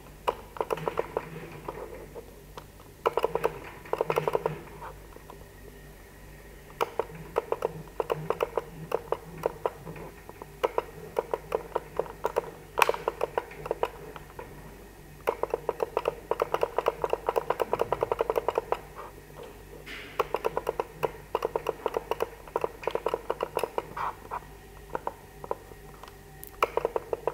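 Joint motors of an Amber B1 seven-axis robot arm running in bursts of one to a few seconds as single joints are jogged. Each burst is a rapid run of ticks, and one sharper click comes about halfway through. A low steady hum runs underneath.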